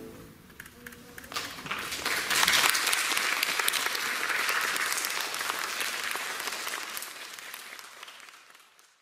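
Audience applause: a few scattered claps about a second in, swelling quickly into full clapping, then thinning and fading away near the end.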